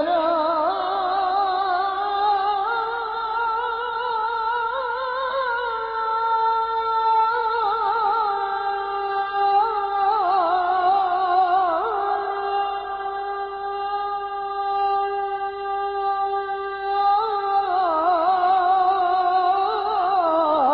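A muezzin chanting the adhan unaccompanied, drawing out one long ornamented melisma whose wavering pitch steps up and down through several notes. The sound is thin and narrow, as on an old recording.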